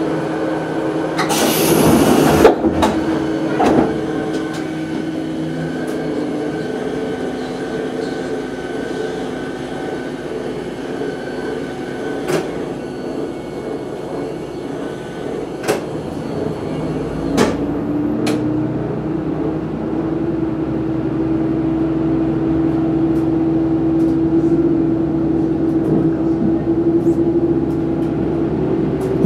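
Sanriku Railway 36-series diesel railcar heard from the front of the cab, its engine idling at a station stop, with a short loud hiss near the start and a few sharp clicks. About 18 seconds in the engine note rises and strengthens as the railcar pulls away.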